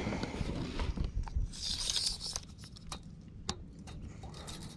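Handling noise close to the microphone as an angler moves about in a kayak and works a fishing rod: rustling and scraping with many sharp clicks. A short hiss comes about two seconds in.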